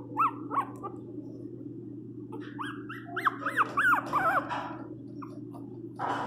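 Miniature pinscher puppy crying in high-pitched, arching yelps: two near the start, then a quick run of about eight in the middle. A steady low hum runs underneath.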